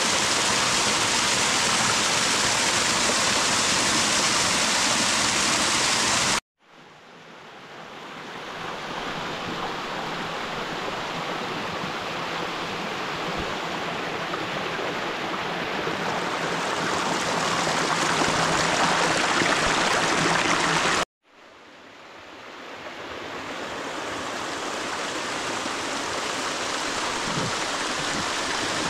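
Small mountain stream rushing and splashing down a series of cascades over rocks. The water sound cuts out abruptly twice, at about six and twenty-one seconds in, and fades back up each time.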